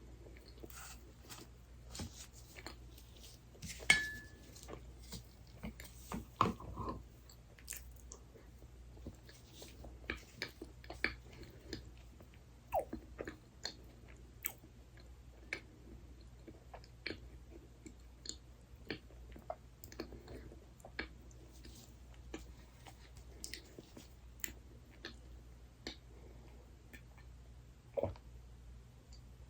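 Close-miked eating of soft desserts: irregular chewing and biting with small crunches and wet clicks. About four seconds in comes one sharp click with a brief ring.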